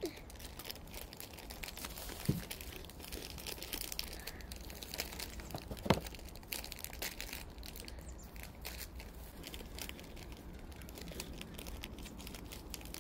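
Plastic snack wrapper crinkling and rustling as it is handled, with two sharper clicks, one about two seconds in and one about six seconds in.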